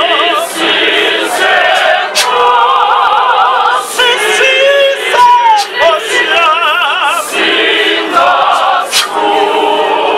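A large group of women's and men's voices singing together unaccompanied, the held notes wavering with heavy vibrato. A few sharp knocks cut through the singing.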